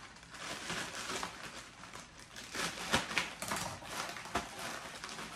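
Plastic poly mailer being torn open and handled: irregular rustling and crinkling with short sharp rips, the sharpest about three seconds in.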